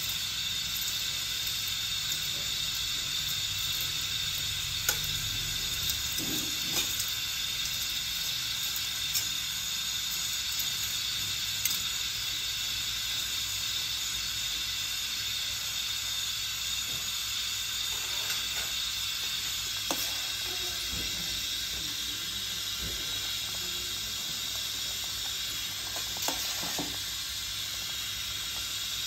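A pot of rice noodles boiling hard on a portable gas burner, making a steady hiss, as the noodles are stirred with tongs. A handful of sharp clicks come from the tongs knocking against the pot.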